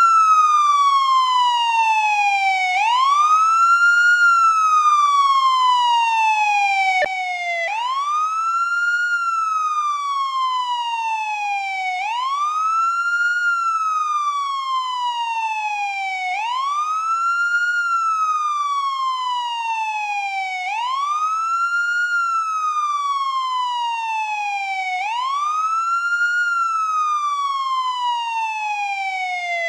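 American police siren in wail mode, its pitch rising quickly and then falling slowly, repeating about every four and a half seconds. A single sharp click comes about seven seconds in.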